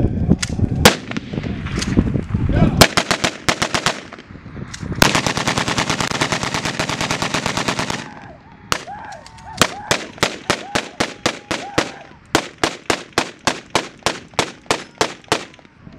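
Rifles fired into the air in a gun salute. A few single shots come first, then rapid strings of shots, with a dense unbroken burst of fire in the middle.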